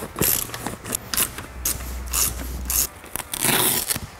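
Ratchet wrench clicking in short runs of strokes, tightening the bolts of a telescoping ladder's mounting brackets.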